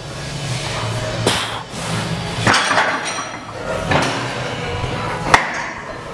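Iron weight plates knocking against the metal loading sleeve of a plate-loaded chest press machine as they are handled: four sharp metallic clanks about a second apart, the last the loudest, over steady room noise.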